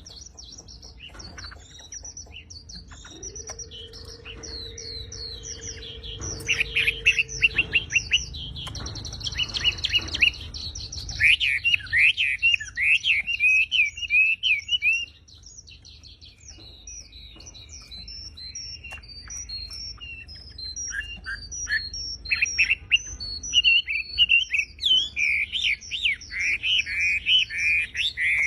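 Wambi bird singing: fast strings of sharp chirps and whistles, coming in loud bursts ('tembakan') several seconds long. A steady low hum sounds underneath for a few seconds, starting about three seconds in.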